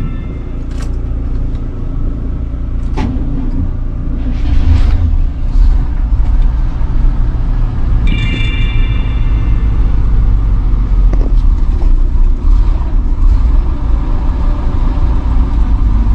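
The motorhome's 7.4 L 454 big-block V8 idling steadily, heard from inside the cab, getting louder about four seconds in. A short high-pitched tone sounds about eight seconds in.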